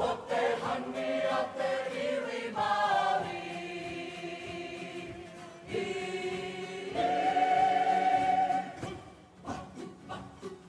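Kapa haka group of men and women singing a waiata together to acoustic guitar, with long held notes, the longest about seven seconds in. Short sharp sounds break in near the end.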